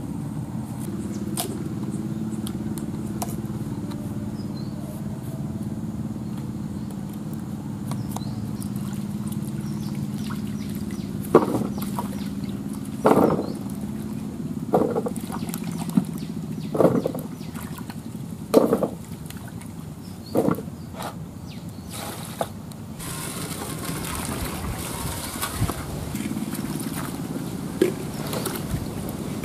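Peeled manioc (cassava) chunks being washed by hand in a clay pot of water. Through the middle there is a string of sharp splashes and knocks, roughly one every second or two, and later a steady swishing as the pieces are scrubbed in the water. A low, steady hum runs underneath in the first part.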